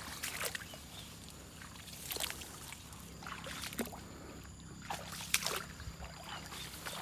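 Scattered rustling and swishing of tall grass with footsteps moving through it, a few sharp brushes spaced about a second apart. A faint steady low hum sits underneath from about three seconds in.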